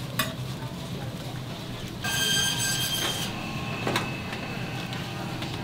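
Metal tools tapping and scraping on a steel griddle: a hotteok press and spatula working the rice pancakes. A sharp click comes just after the start, a high ringing metallic squeal is held for about a second starting two seconds in, and another click follows about four seconds in.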